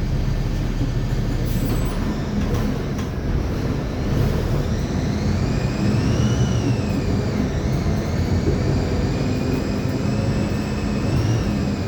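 Mercedes-Benz OF-1724L bus under way, its diesel engine rumbling, with a whine from the differential gears that sets in about four seconds in and rises and falls in pitch with road speed. The uploader singles out this differential noise.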